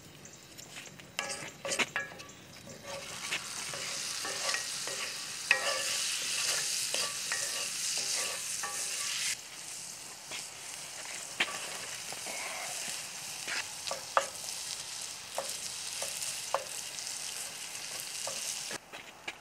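Butter and minced garlic sizzling in a cast iron skillet, the sizzle swelling a few seconds in and then dropping to a lower hiss. Through the later part a wooden spatula stirs sliced onions in the pan, with scattered scrapes and taps against the iron.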